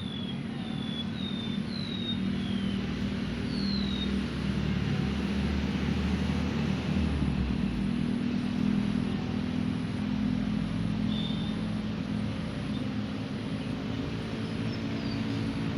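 Road traffic rumbling steadily, growing louder in the middle as vehicles pass. A bird's short, downward-sliding chirps sound over it, several in the first few seconds and a few more near the end.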